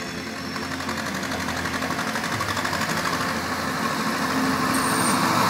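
Small diesel locomotive of a park railway running as it approaches with its train of coaches, the engine drone and running noise growing steadily louder; a deeper engine tone comes in about halfway through.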